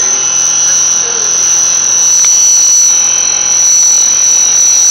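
Face mill cutting a metal workpiece on a CNC milling machine, giving a loud, steady high-pitched whine.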